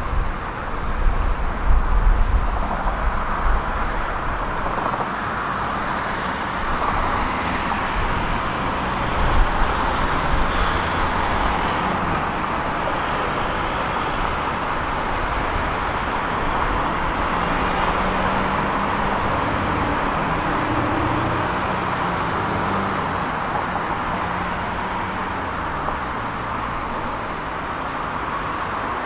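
Steady road traffic noise from cars and vans passing on a multi-lane road, with wind buffeting the microphone in the first few seconds. Near the end a passing vehicle's engine note slides down in pitch.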